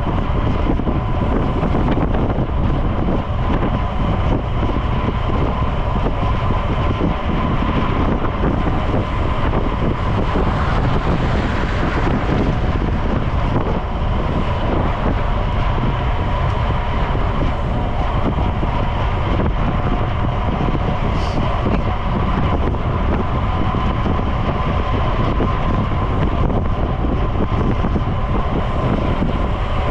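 Steady wind rush buffeting the microphone of a camera on a moving road bike, with road and tyre noise and a thin steady whine underneath.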